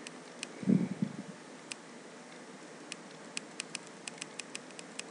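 Computer keyboard's Enter key clicked repeatedly to page through terminal output: a few single clicks, then a quicker run of clicks from about three seconds in. A brief low thump about a second in is the loudest sound.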